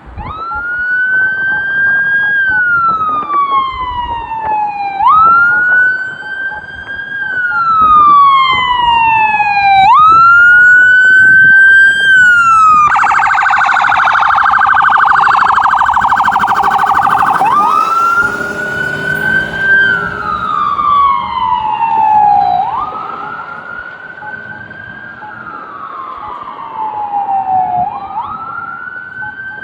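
Ambulance's electronic siren sounding a wail: a quick rise, then a slow fall, repeating about every five seconds. About 13 seconds in it switches to a rapid yelp for a few seconds, then goes back to the wail. It is loudest in the middle and fades over the last several seconds as the vehicle moves away.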